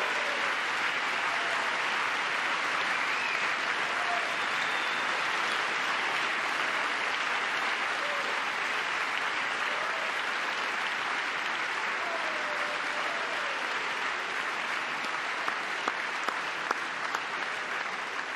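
A large crowd applauding steadily and at length.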